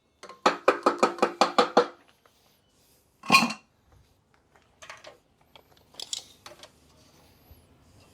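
Aluminium tubing and fittings clanking as they are handled: a quick run of about eight ringing metal knocks, then one louder clatter a little past three seconds and a few lighter clicks.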